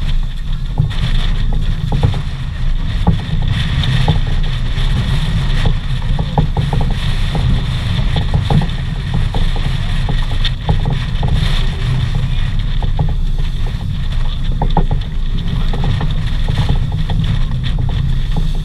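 Heavy wind buffeting the microphone with a steady, loud rumble, over water rushing and splashing along the hull of a sailboat heeled hard in gusty wind, with scattered short slaps of spray.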